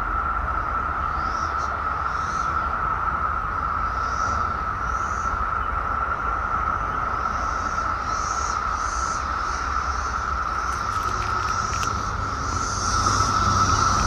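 Chorus of periodical cicadas (Brood X) in the treetops: a steady, unbroken high-pitched drone, growing louder about twelve seconds in.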